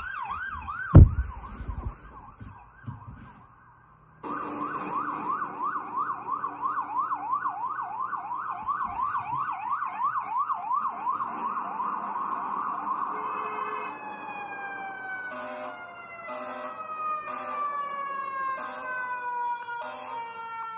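Emergency-vehicle siren in a fast yelp, its pitch sweeping up and dropping about three times a second. It breaks off briefly near the start, then about two-thirds of the way through slides into a slow, steadily falling wail, with several short blasts near the end. A sharp knock about a second in.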